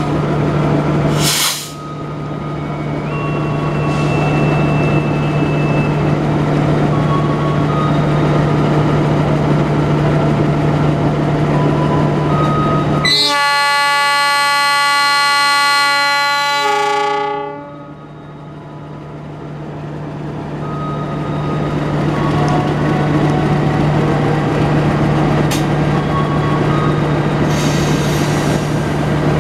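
GE CC206 diesel-electric locomotive running with a steady drone. About 13 seconds in its horn sounds one long blast of about four seconds, the loudest sound here.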